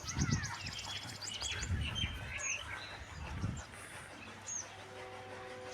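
Small birds chirping and twittering over and over, with a few low thuds in the first half. A steady low tone starts near the end.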